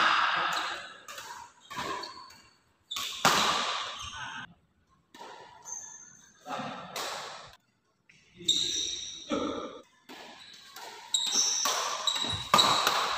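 Badminton rally in a large indoor hall: rackets striking the shuttlecock in sharp, irregular cracks that echo, with short squeaks of shoes on the court.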